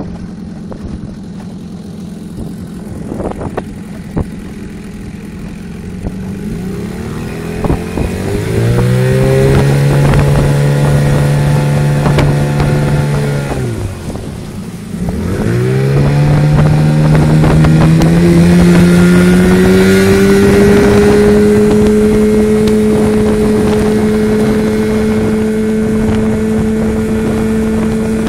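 Suzuki DT 8 hp two-stroke outboard motor running slowly, then opened up about six seconds in, its pitch climbing to a steady high note. Around fourteen seconds the revs drop off sharply, then it revs back up and holds a steady high pitch at planing speed.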